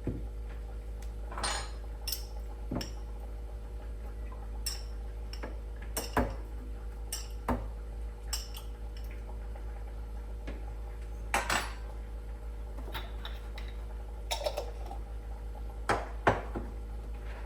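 Kitchenware being handled: irregular clinks and knocks of dishes, pots and utensils, some ringing briefly, over a steady low hum.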